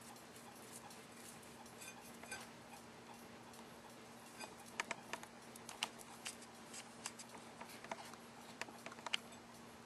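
Faint, scattered light clicks and taps of small greased metal swing-axle parts being handled and fitted, with most of the clicks in the second half. A faint steady hum runs underneath.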